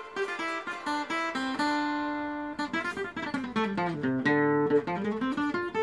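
Steel-string acoustic guitar played solo: a picked single-note melody with a note held about two seconds in, then a run of notes stepping down into the bass and climbing back up.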